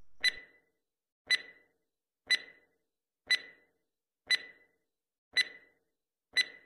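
Countdown timer sound effect: a short, sharp clock-like tick with a brief ring, repeating evenly once a second.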